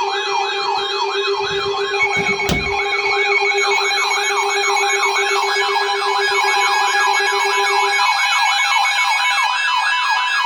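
Electronic warning-siren tones sounding for a severe thunderstorm warning: a fast rising-and-falling whoop repeats about two and a half times a second over several steady tones. A lower steady tone drops out about eight seconds in, and a sharp click comes about two and a half seconds in.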